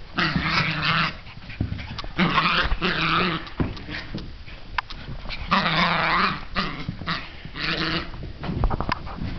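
Small dogs, a Bichon/Shih Tzu mix and a Chihuahua, growling in play-fighting bursts of about a second, four times, with a few sharp clicks between.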